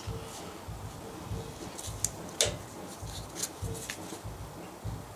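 Click-type torque wrench being pulled on a cylinder head bolt: a few short, sharp metallic clicks from the wrench's ratchet head, the loudest about halfway through, over low handling rumble.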